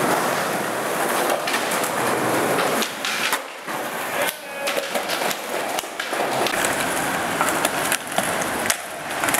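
Skateboard wheels rolling over concrete and paving stones, with sharp clacks of the board hitting the ground.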